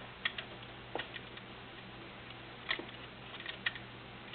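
Scattered light clicks and taps of parts being handled while fitting the Wonder Wheel attachment to a Necchi BU Mira sewing machine, irregular and a few seconds apart.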